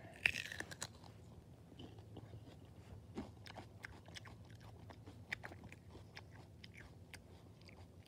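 Faint, irregular crackling clicks and crunches close to the microphone, a little denser in the first second, over a low steady hum.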